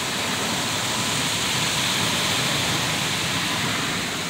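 Rinse water from a Ryko Softgloss Maxx automatic car wash spraying steadily over a pickup truck, heard from inside the cab as an even rushing hiss. It swells a little, then eases near the end.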